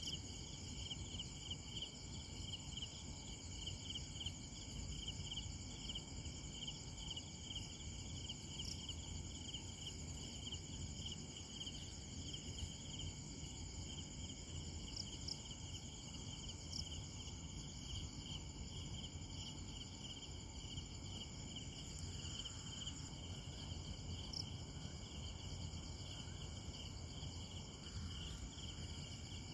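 Night chorus of crickets and other insects: several steady high-pitched trills overlapping, one pulsing about three times a second, over a low steady rumble.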